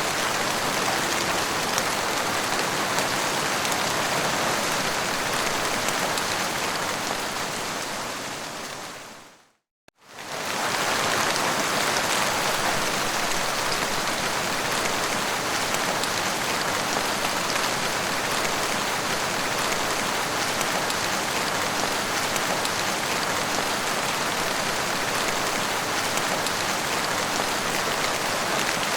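Heavy rain falling as a steady, even hiss. About nine seconds in, it fades out to a moment of silence and then quickly fades back in, as at the loop point of a recording.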